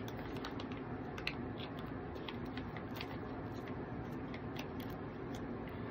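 Small package being handled and picked at with fingers: light, irregular clicks and crinkles over a steady hiss.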